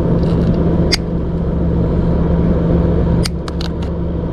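A steady, loud low motor hum with a constant tone, like a running engine or machine, with a sharp click about a second in and a quick run of clicks near the end.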